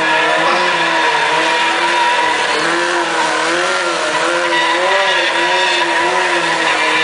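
Sport motorcycle engine held at high revs during a burnout, its pitch wavering up and down as the throttle is worked. The spinning rear tyre squeals against the pavement.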